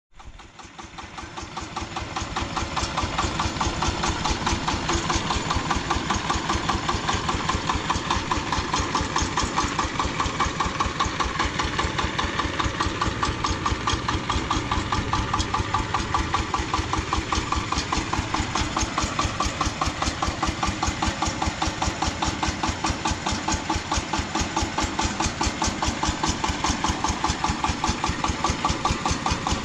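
Jiang Dong single-cylinder horizontal diesel engine on a homemade mini tractor, idling with a fast, even beat. It grows louder over the first two or three seconds, then runs steadily.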